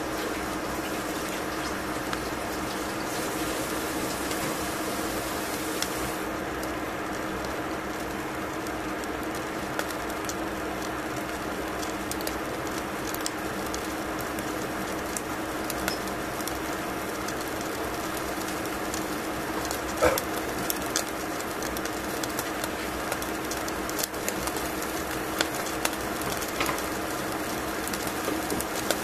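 Salmon fillet cooking on aluminium foil in a pan: a steady sizzling hiss with a constant low hum underneath, and scattered small pops and crackles that come more often in the second half.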